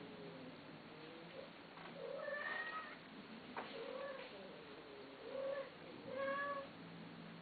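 Long-haired cat meowing repeatedly: a run of short meows, about four of them clear.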